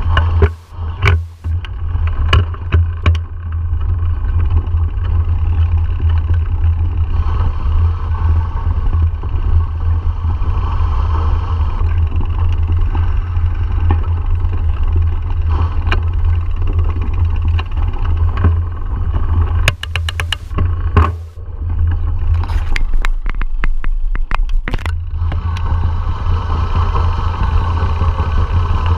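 Wind buffeting an action camera's microphone while riding a mountain bike over a gravel and dirt track, a heavy low rumble with the clatter and clicks of the bike over rough ground. The rumble drops away for a couple of seconds about three quarters of the way in, then returns.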